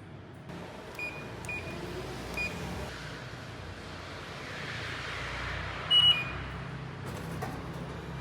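Vending machine giving short electronic beeps: three quick high beeps early, then a louder beep about six seconds in, the loudest sound here. A steady low hum runs underneath.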